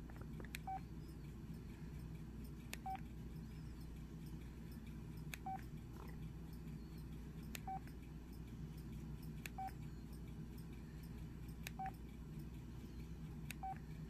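Short key-press beeps from an LG enV Touch phone, all at one pitch, seven in all about every two seconds. Each comes with a faint click of the press as the phone steps to the next wallpaper.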